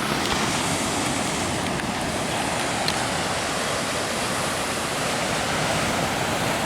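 Ocean surf: a steady rush of swells washing in and breaking along the shore.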